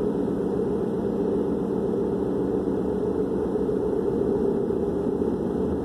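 Steady rumble of a car heard from inside the cabin, with no changes.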